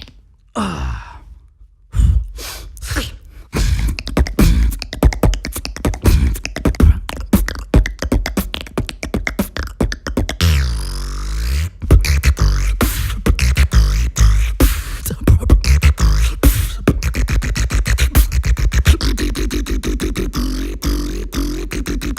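Human beatboxing: a fast, dense run of mouth-made kicks, clicks and snares over deep vocal bass, opening with a falling vocal sweep and with a wobbling, pitch-bending bass passage about halfway through.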